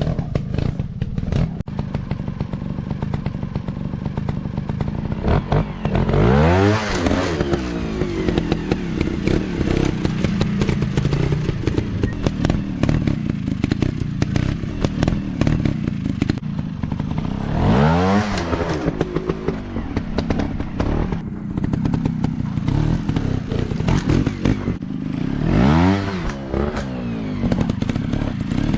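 Dirt bike engine running steadily, revved up and back down three times, with frequent clicks and clatter in between.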